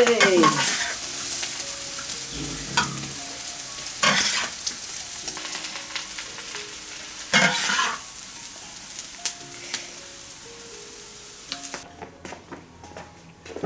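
Carrot and egg stir-fry sizzling in a large wok as a spatula scrapes it out onto a plate, with a few sharp scrapes and knocks of the spatula on the wok, loudest about four and seven seconds in. The sizzling fades, and near the end only a few light knocks are left.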